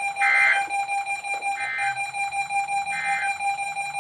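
NOAA Weather Radio EAS end-of-message signal: three short bursts of SAME digital data tones, about 1.4 seconds apart, marking the end of the required weekly test. A steady high tone runs underneath.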